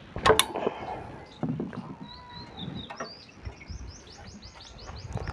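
A few sharp metallic clinks and knocks from a spanner on the valve rocker gear of a Powertrac 439 DS tractor's diesel engine, the loudest just after the start. Birds chirp in the background, with a quick trill near the end.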